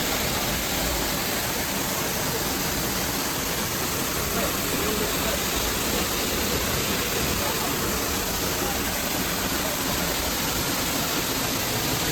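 A waterfall, its falling water making a steady rushing noise with no breaks.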